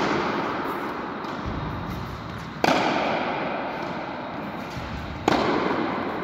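Tennis balls struck hard by rackets, three sharp pops about two and a half seconds apart, each ringing on in a long echo through the large indoor tennis hall.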